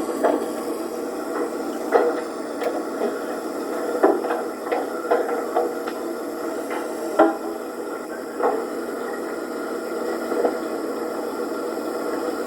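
Steady background hum with scattered knocks, clicks and light rattling, like gear being handled and set down.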